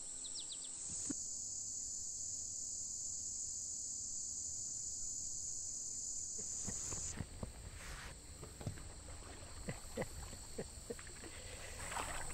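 Steady high-pitched insect chorus over a marsh. About seven seconds in it drops back, and scattered soft splashes and drips of water come in as a person wades and sweeps a dip net through shallow water.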